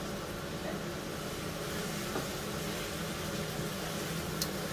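Steady hum of a kitchen range-hood fan over the faint sizzle of mushrooms and vegetables frying in a pan as they are stirred; a brief click near the end.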